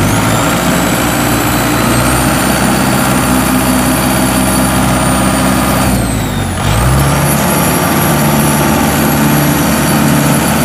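The engine of a motorised mud sled loaded with rice sacks, run hard as it strains to pull the bogged sled out of sticky paddy mud. It revs up at the start, holds high revs, sags briefly about six seconds in, then picks up again.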